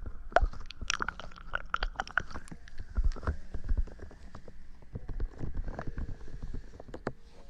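Close-miked ASMR trigger sounds: dense, irregular crackling and clicking, thinning out toward the end.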